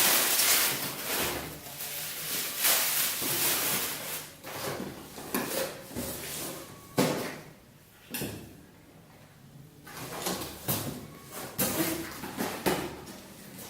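Camcorder being unpacked by hand: box and packaging scraping and rustling in irregular bursts, with a sharp knock about seven seconds in and a quieter pause after it.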